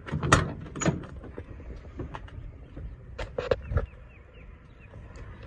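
Cab door of a 1998 International 4700 truck being unlatched and pulled open: sharp clicks and clunks of the handle and latch within the first second, then a cluster of knocks about three seconds in as the door swings open.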